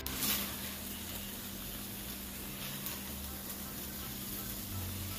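Browned chicken pieces sizzling steadily in oil in a hot pan, with a few light scrapes and clinks of a spatula as the pieces are lifted out onto a plate.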